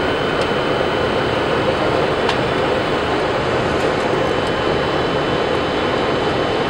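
Steady flight-deck noise of a Boeing 747-400 airliner on approach: an even rush of airflow and engine noise with a thin high tone running through it. There is a faint click about two seconds in.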